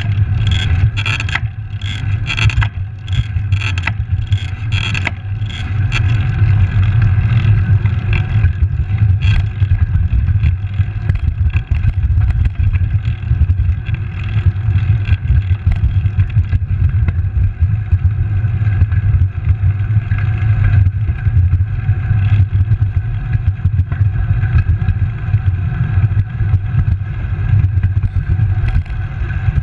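Wind buffeting the microphone and tyre noise on asphalt as a road bicycle rolls along, a loud steady low rumble throughout. For the first several seconds a quick series of sharp clicks or rattles, about three a second, sounds over it and then stops.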